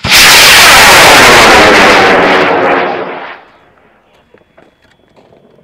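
Cesaroni K740 C-Star high-power rocket motor igniting at once into a loud rushing roar. It burns for about three seconds, then fades away quickly as the rocket climbs.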